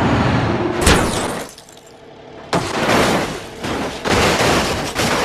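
Water splashing over a muddy toy bus as it is washed, in three hissing bursts with a sharp knock about a second in.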